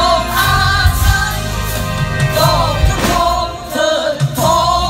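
Live music played loud over a stage sound system: a large ensemble of drum kits beats out a rhythm, with cymbal crashes, under a sung melody.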